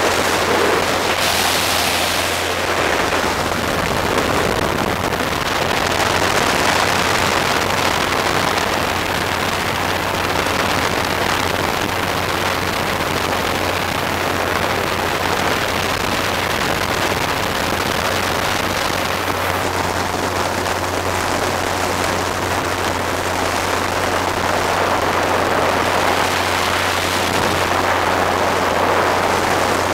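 Engine and propeller of a flying raft boat running steadily in flight, a constant low drone under heavy wind rushing over the microphone.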